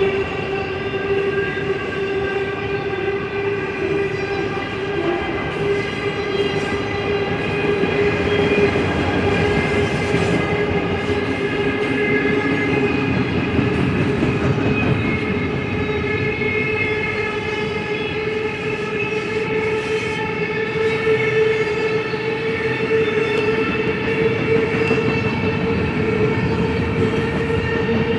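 Freight train cars (autoracks, then double-stack container well cars) rolling past close by: a steady loud rumble and rattle of steel wheels on rail, with several steady high-pitched tones held over it.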